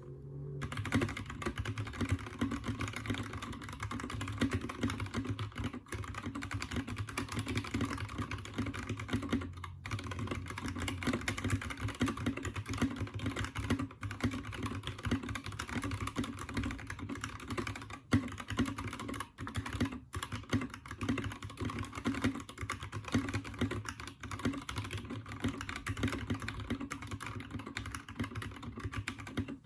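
Anne Pro 2 mechanical keyboard with Kailh Red linear switches, stock keycaps, lubed stock stabilisers and no case foam, typed on quickly and continuously: a dense, steady clatter of keystrokes.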